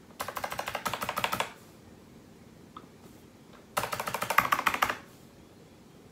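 Computer keyboard keys tapped in quick succession, in two bursts of about a second each roughly three seconds apart, with a single soft click between them.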